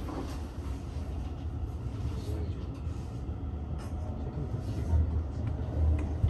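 Seibu 30000 series electric train running along the track, heard from inside the car: a steady low rumble with a few sharp clicks.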